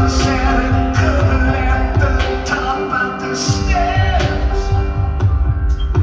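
Live music from an electric guitar and a grand piano, with a man singing.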